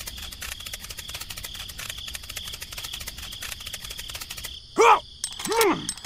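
Cricket chirping ambience: rapid, even clicking with a steady high tone. Near the end come two short cartoon-voice grunts that fall in pitch.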